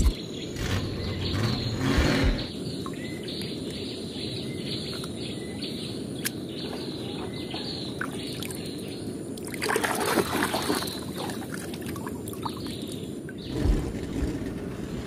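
Small birds chirping over a steady hiss, with a louder stretch of water sloshing about ten seconds in as a toy car is swished through a muddy puddle.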